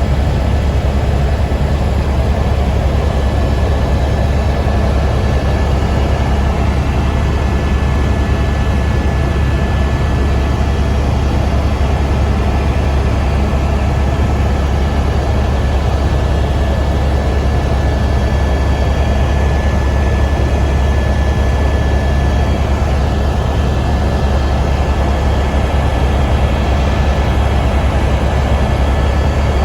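Helicopter in flight: a loud, steady low drone from the rotor and engine, with a thin, steady high tone over it.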